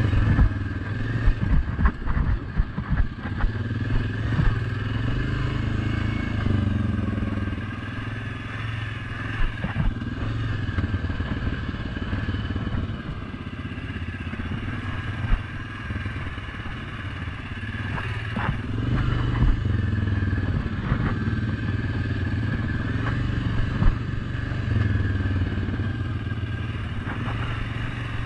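Suzuki King Quad 750 ATV's single-cylinder engine running at trail speed, its pitch shifting a little with the throttle. Sharp knocks and clatter from the quad jolting over the rough trail, thickest in the first few seconds and again here and there later.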